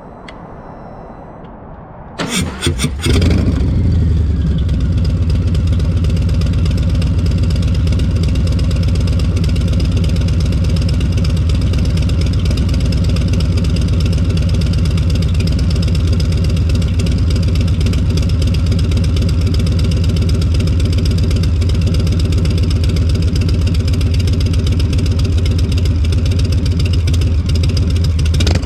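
A Harley-Davidson Low Rider S's Milwaukee-Eight 114 V-twin, breathing through a TBR Turnout 2-into-1 exhaust, is cranked and fires about two seconds in. It settles from a fast start to a steady, deep idle.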